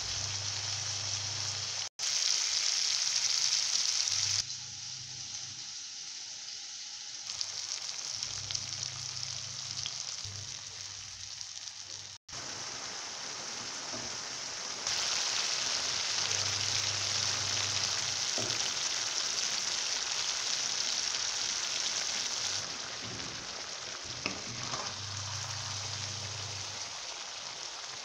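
Ridge gourd pieces and masala sizzling in hot oil in a pan, a steady hiss, with a few light scrapes of a spatula.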